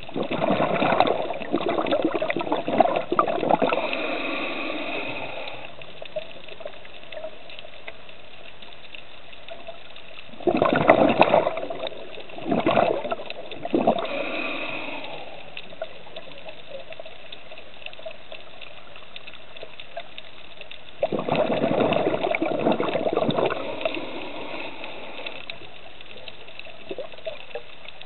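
Bubbling water heard underwater in three bursts of a few seconds each, about ten seconds apart, over a steady faint hum.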